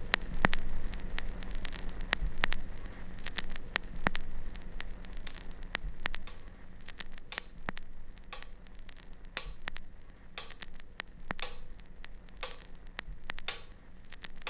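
Mechanical pendulum metronome ticking about once a second, over a steady hiss with scattered clicks and a low hum.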